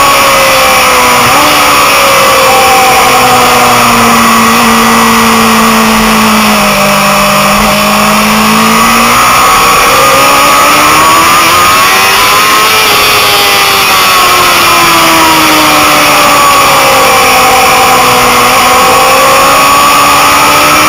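Motorcycle engine running at track speed, its pitch sinking as the bike slows for bends and climbing again as it accelerates, about twice over, under heavy rushing wind noise on the microphone.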